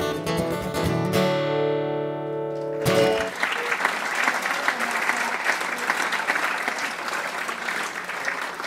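Acoustic guitar strumming the closing chords of a folk song, the last chord left ringing for about two seconds. Then an audience applauds for the rest of the time, tapering off near the end.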